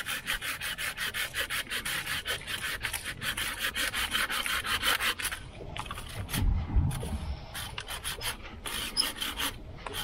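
Folding hand saw cutting through a thin tree branch, with quick, even back-and-forth strokes at about four a second. After about five seconds the strokes become fewer and uneven, with a low thump between them.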